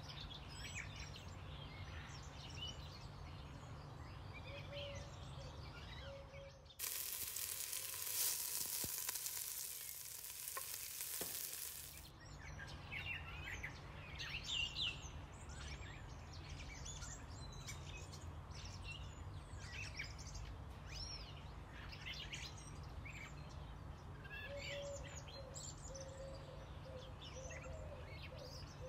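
Chopped leeks and carrots sizzling as they sauté in hot oil in a soup pot: a loud, even sizzle that starts abruptly about 7 seconds in and cuts off about 5 seconds later. Birds chirp in the background throughout, over a low steady hum.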